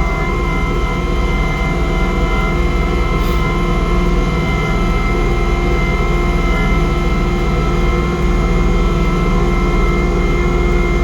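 Kubota compact tractor's engine running steadily under load, driving its snowblower through heavy, wet snow. It is a constant drone with steady whining tones.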